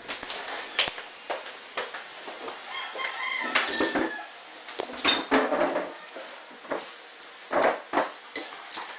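Knocks and clatter of a plastic stool being moved and dishes handled at a table, with sharp knocks scattered through. A long wavering call sounds about three to four seconds in.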